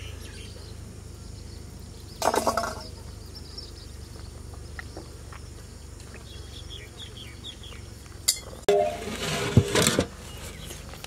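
Stainless-steel drinking pot being handled, clinking twice: a short clink about two seconds in and a longer ringing clatter near the end. Faint bird chirps sound in between.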